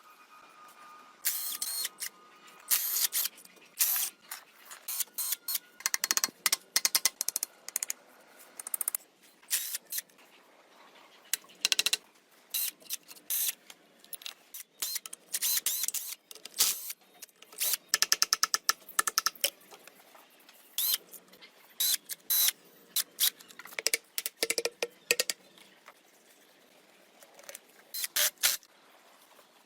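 Irregular clicks, taps and short scraping or rattling bursts, with a few quick runs of rapid clicking, as from hand work on hard parts.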